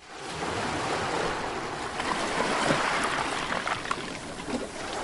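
Ocean surf: waves breaking and washing up on a beach, a steady rushing sound that fades in at the start.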